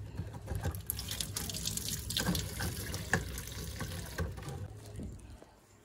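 Kitchen tap running into a stainless steel sink, with a few light knocks, until the water is turned off near the end.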